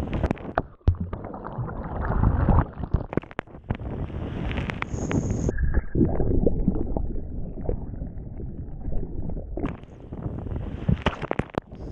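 Sea water rushing and gurgling around a camera held under and at the surface beside a moving sailboat: a dense muffled wash with many sharp clicks and knocks. Two brief steady high tones sound about five seconds in.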